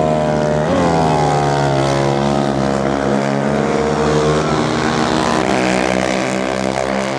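Yamaha Raptor 250 race quad's single-cylinder four-stroke engine revving hard as it goes by. Its note jumps up about a second in, then falls away slowly and holds at a steady drone.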